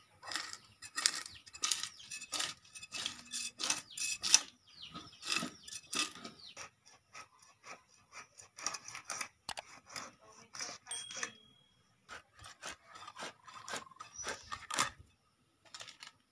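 Rohu fish being scaled and cut on a boti, a curved blade fixed upright on a wooden base: a run of short, irregular scraping strokes as the fish is drawn against the blade and the scales come off.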